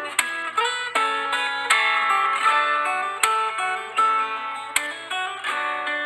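Background instrumental music led by plucked guitar: a picked melody over sustained notes, with a stronger struck chord about every second and a half.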